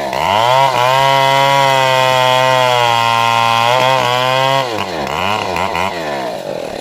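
Stihl 070 two-stroke chainsaw revving up to full throttle and holding steady high revs for about four seconds. It then drops off, is blipped up and down a few times, and settles back toward idle near the end.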